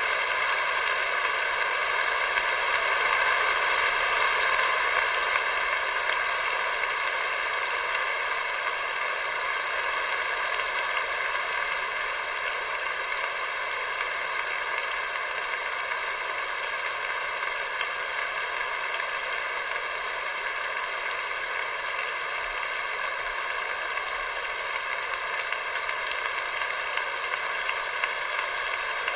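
Steady static hiss, even and unchanging, with no voice or music over it.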